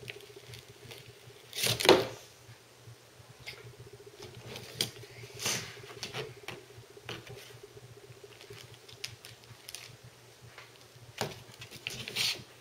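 A small card-and-plastic toy package being opened by hand: scattered crinkles, clicks and peeling of card and plastic. The sharpest sound comes about two seconds in.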